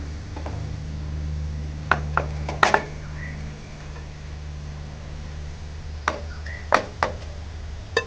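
A wooden spatula knocking against a glass bowl and the rim of a nonstick wok as cooked rice is scraped into the pan. There are a few sharp knocks about two seconds in, then more from about six seconds in, over a steady low hum.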